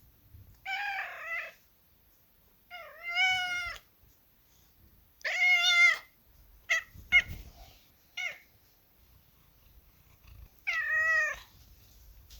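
Kitten meowing: four drawn-out, high-pitched meows of about a second each, with three short, quick mews in between.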